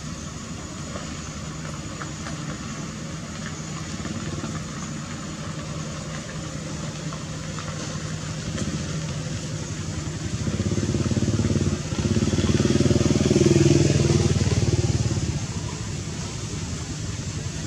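A steady engine hum, likely a motor vehicle, that grows louder about ten seconds in and fades again after about fifteen seconds, as if the vehicle passes close by.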